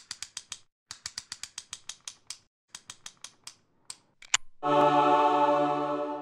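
Intro logo sound effect: runs of quick dry ticking clicks, several a second, with two sharper clicks just after four seconds, then a sustained chord of many steady tones that enters about four and a half seconds in and fades out at the end.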